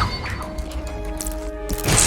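Film-score music with several notes held steadily, broken near the end by a sudden loud noisy sound effect.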